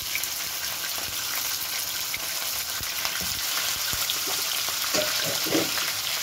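Raw chicken pieces sizzling in hot oil in a non-stick wok, a steady frying hiss. A wooden spoon stirs them, giving a few knocks and scrapes against the pan from about three seconds in.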